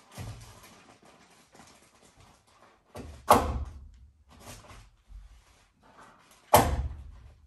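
Two sharp bangs against the wooden ceiling framing, one about three seconds in and another about three seconds later, each with a short low ringing tail, with faint rustling between.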